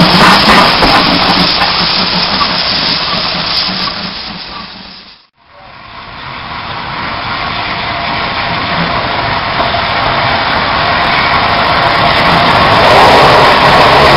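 Steam locomotives passing at close range. First GWR 2-8-0 tank engine No. 5224 goes by with steam hissing, and its sound fades out to silence about five seconds in. Then LNER A1 Pacific 60163 Tornado draws alongside, its steam hiss and running noise growing steadily louder.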